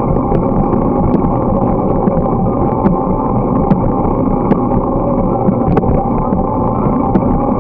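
Steady muffled rumble of a moving bicycle, tyres rolling on the pavement with wind on the camera's microphone, dotted with faint light ticks about once a second.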